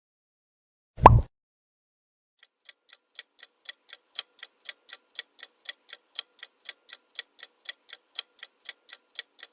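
A single short pop sound effect, then a clock ticking about four times a second as a quiz countdown timer.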